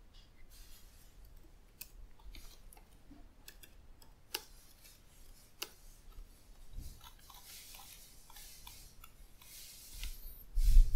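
Computer keyboard keystrokes: irregular clicks and taps as commands are typed to quit the editor and compile and run a program. A low thump near the end.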